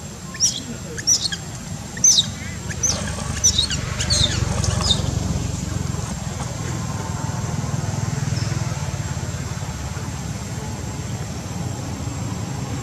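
Young long-tailed macaque giving a rapid series of short, high-pitched squeaks that drop in pitch, about two a second, stopping about five seconds in. A low steady rumble takes over from about four seconds in.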